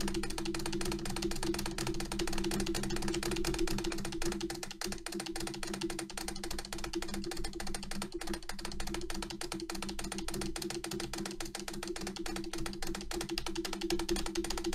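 Rapid, continuous clicking of an Acer keyboard's spacebar struck by alternating hands, about seven presses a second, over a steady low hum.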